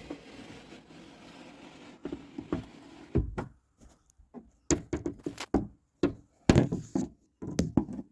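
Irregular knocks and thunks of a camera being handled and bumped against a car door and its window frame, starting about two seconds in and coming every half second or so.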